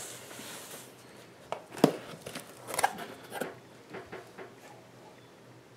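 Cardboard shipping box being opened by hand: flaps pulled back with cardboard rustling and scraping, and a series of sharp knocks and taps, the loudest about two seconds in.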